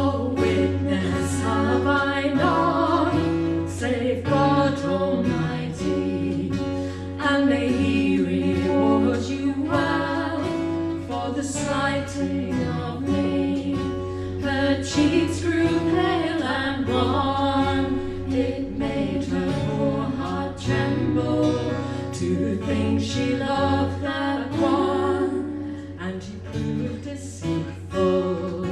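Acoustic folk band playing a passage of a traditional song, with guitar, a wavering melody line and a steady low drone.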